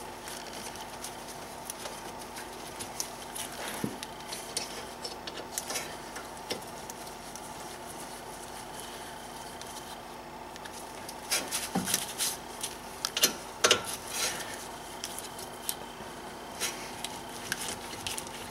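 Scattered metallic clicks and clinks as the guide bolts of a BMW E90 front brake caliper are lined up and threaded into the caliper bracket by hand. The clicks come in a busier flurry a little past the middle, over a faint steady hum.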